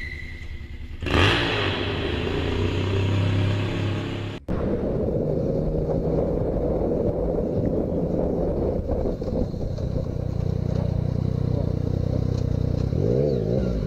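Motorcycle engine running while riding, with wind and road noise on the bike-mounted camera's microphone. About a second in comes a short loud rush of noise. About four seconds in the sound breaks off and cuts to another ride with the engine running steadily and a brief rev up and down near the end.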